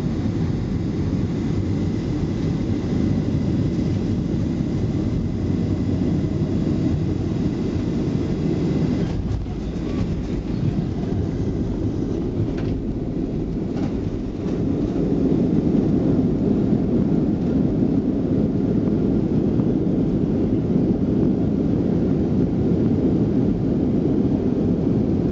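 Cabin noise inside a Southwest Boeing 737 rolling on the ground after landing: a steady low rumble of engines and wheels on pavement, with a few faint knocks, growing louder about fifteen seconds in.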